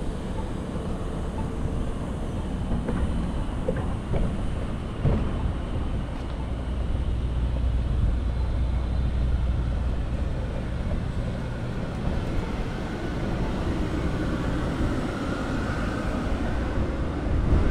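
Low rumble of wind on the microphone and road noise from a moving bicycle, heaviest in the middle, with a few short knocks early on and a faint high tone near the end.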